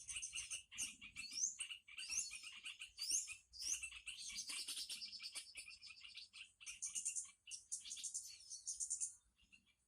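High-pitched bird calls: quick chirps and short upward-sweeping whistles in the first few seconds, then rapid buzzy trills near the end.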